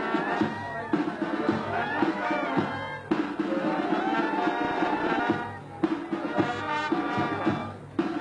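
A band playing a melody on wind or brass instruments over a steady drum beat, in phrases with short breaks.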